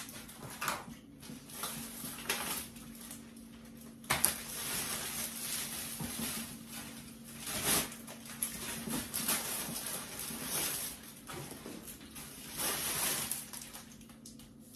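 Plastic carrier bag rustling and crinkling as groceries are pulled out of it, with occasional light knocks as items are set on a wooden table.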